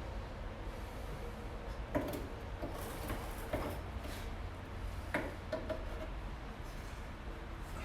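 Scattered metallic knocks and clanks, about five in all, from handling an exhaust pipe and its hangers under a car, over a steady low hum.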